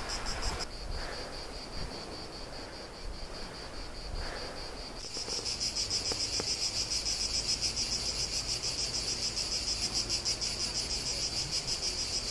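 Insects singing in a steady high-pitched chorus with a fast, even pulse. The chorus is quieter at first and grows louder about five seconds in.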